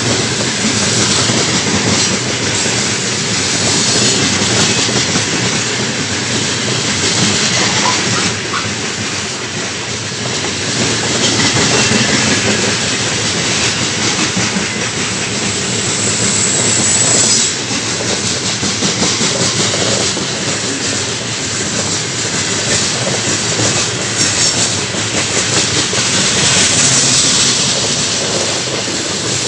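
Heavy freight train's wagons rolling past close by at speed: a continuous rumble and clatter of steel wheels over the rails, with a brief high-pitched squeal a little past halfway.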